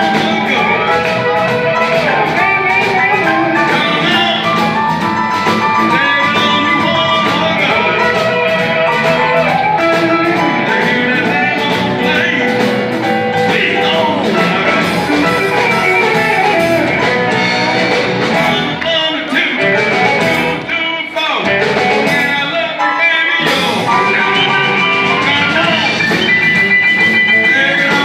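Live electric blues band playing an instrumental stretch: electric guitar, bass, drums and keyboard, with an amplified blues harmonica played cupped against a handheld mic. The bass and drums briefly drop out a couple of times about two-thirds of the way through.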